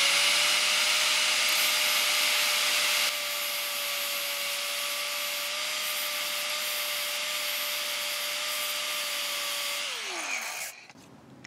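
Electric angle grinder running with a steady high whine while its wheel grinds the threads off a Nissan M10x1.0 banjo bolt held in locking pliers, a loud grinding hiss over the motor, heaviest in the first few seconds. Near the end the motor winds down with a falling whine and stops.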